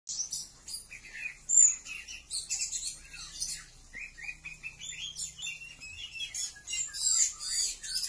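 Oriental magpie-robins chirping and whistling in a quick, varied run of short notes, with sharp high squeaks mixed in: a male's courtship calls to a female.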